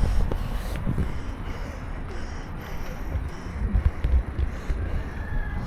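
Wind buffeting the microphone in uneven low gusts over faint outdoor street noise, with a faint high tone near the end.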